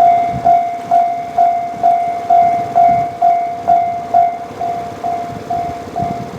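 Japanese level-crossing warning bell ringing: an electronic clang repeating about twice a second, a little quieter after about four seconds.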